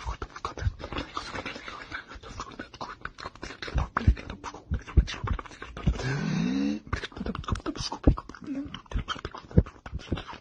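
A dog's close-up mouth and breathing noises: rapid, irregular clicks and puffs, with a brief pitched whine about six seconds in.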